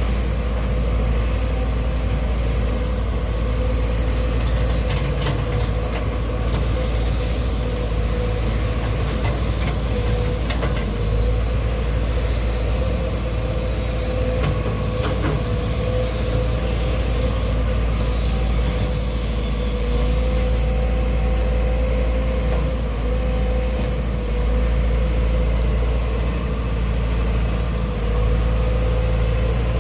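Heavy machinery running steadily: a low engine drone with a constant whine above it and a few faint clicks.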